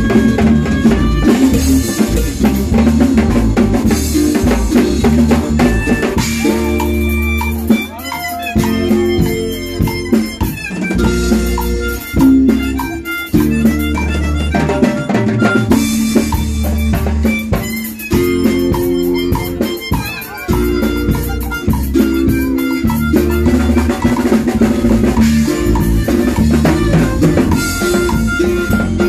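A live band playing: a drum kit keeps a steady beat under bass and other instruments, loud and close.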